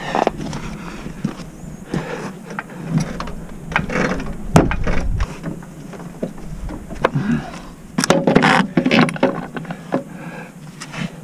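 Irregular mechanical clicks and clanks from a hydraulic floor jack being worked to raise the rear suspension and press a new coil spring into its seat, with a busier clatter about eight seconds in.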